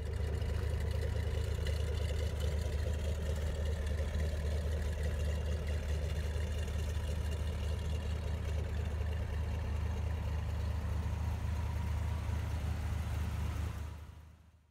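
Car engine idling with a steady, deep rumble that fades out near the end.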